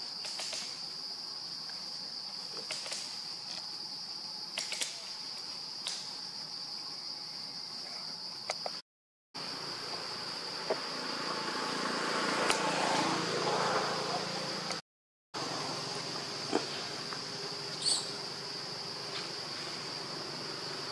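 A steady, high-pitched insect drone, with scattered clicks and a louder stretch of noise in the middle. The sound cuts out completely twice for a moment.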